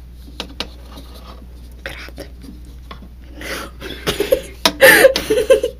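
Hands working at a reptile enclosure: a few light clicks, then rubbing and scraping that gets louder about halfway through, with sharp clicks near the end as a part is being fitted on.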